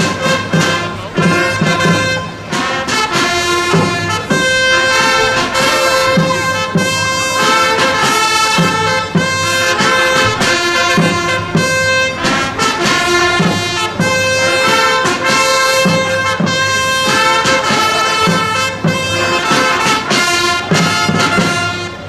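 A brass fanfare played by an ensemble of long herald trumpets: held, bright notes changing in steps, with regular low beats underneath.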